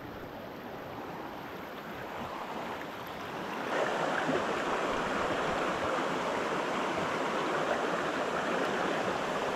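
Shallow rocky creek running over stones: an even rush of water that gets louder about four seconds in.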